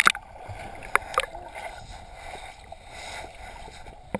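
Muffled underwater sound picked up by a GoPro camera in its waterproof housing while submerged in a pool: a steady dull rush of water, with a sharp knock at the start and two more about a second in.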